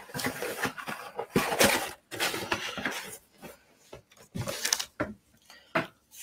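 Packaging rustling and aluminium beer cans knocking against each other as a can is pulled out of a delivery box, in several bursts with short gaps.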